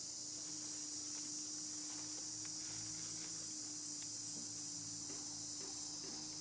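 Steady, high-pitched chorus of forest insects, with a faint low steady hum underneath.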